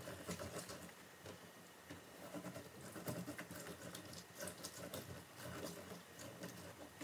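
Faint, irregular small clicks and light taps of oranges being cut and squeezed by hand on a plastic cutting board, with a low steady hum beneath.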